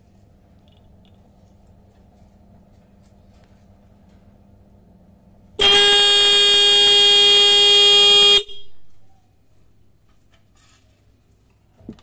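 Denso disc-type car horn, switched on by touching a clip lead to its terminal, sounds one steady, loud blast of just under three seconds about halfway through, then cuts off abruptly. Faint clicks of the clip leads come near the end.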